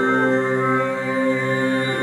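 Several voices overtone singing together, with no electronic effects: low drone notes held steady, with clear overtone pitches ringing above them. The notes shift slightly about the start.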